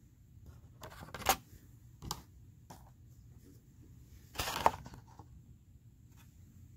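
Handling noise as one paper reading card is swapped for the next: a few light clicks and knocks, and a louder rustling clatter about four and a half seconds in.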